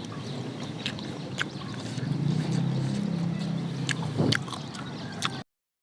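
Close-up eating sounds: chewing and wet mouth clicks over a low rumble, with a sharper click a little past four seconds. The sound cuts off abruptly to silence near the end.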